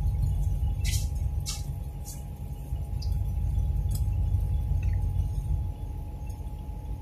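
Steady low rumble of road and engine noise heard inside a vehicle driving on a wet motorway, with a few short high hisses in the first four seconds.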